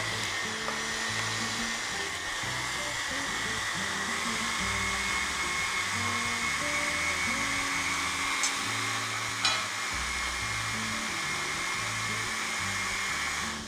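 Countertop blender motor running steadily with a high whine, churning a thick batter, then shutting off abruptly near the end.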